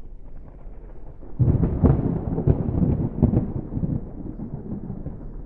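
Thunder: a rumble that breaks out suddenly about a second and a half in, with several loud cracks, then rolls on lower.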